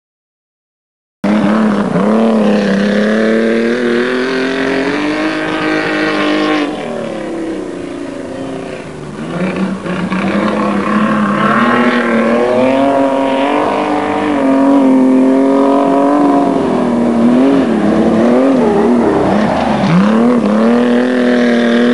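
Speedcar racing engines running hard on a dirt track, starting abruptly about a second in; the pitch rises and falls as the cars accelerate and back off, a little quieter for a few seconds near the middle.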